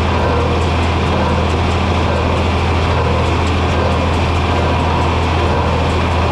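John Deere 4020 tractor's six-cylinder engine running steadily, with a faint regular ticking above the engine.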